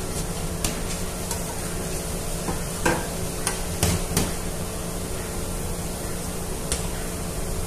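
Metal tongs clack against a stainless steel hotel pan about five times while sauce-coated pork spareribs are lifted out, the clacks bunched around the middle. A steady kitchen hum runs underneath.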